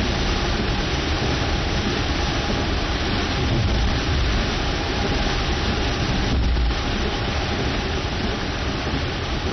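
Torrential rain pouring down in a loud, steady hiss, with low rumbles swelling twice, about midway and again a little later.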